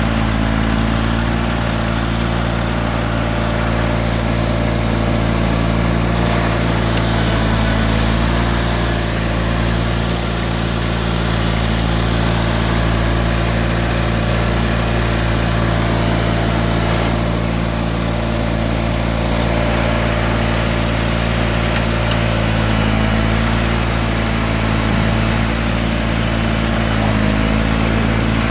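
John Deere 318 garden tractor's air-cooled twin-cylinder engine running steadily, driving the front snowblower as it throws snow out of the chute.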